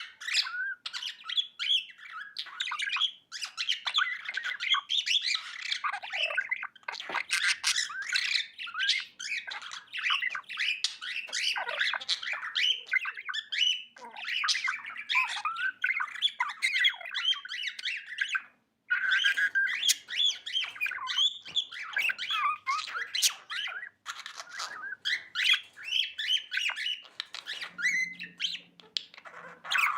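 Pet budgerigars chirping and squawking in a continuous, busy stream of rapid calls, the happy chatter typical of contented budgies, with a brief pause a little before the two-thirds point.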